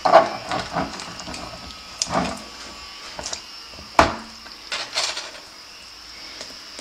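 Raw chicken pieces on a rotisserie spit being handled while bamboo skewers are pushed through them to hold the meat together: a few sharp knocks and taps over soft handling noise, the loudest near the start and about four seconds in.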